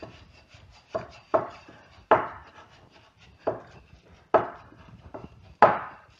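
Wooden-handled wire dough whisk beating stiff, sticky rye dough in a glass bowl: about six sharp strokes at an irregular pace, with lighter scrapes between them.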